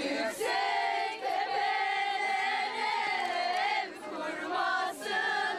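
A group of voices singing a slow henna-night (kına) song together, holding long, wavering notes with short breaks between phrases.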